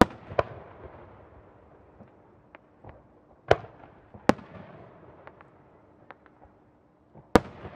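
Aerial firework shells, round Japanese chrysanthemum shells, bursting in the sky: a sharp report right away and another just after, two more about halfway through, and a loud one near the end. Each report is followed by a rolling echo that dies away slowly, with fainter pops in between.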